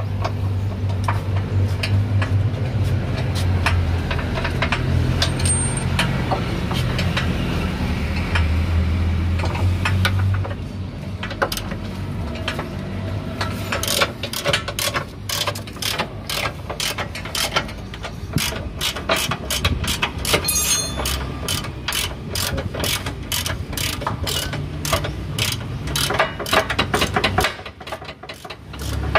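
Hand ratchet wrench on a long socket extension clicking in quick runs as a lower control arm bolt is turned. A steady low hum runs under scattered clicks for the first ten seconds or so.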